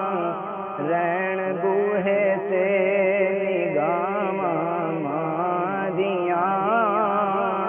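A man's solo voice singing a Punjabi naat, drawing out long, wavering melismatic notes.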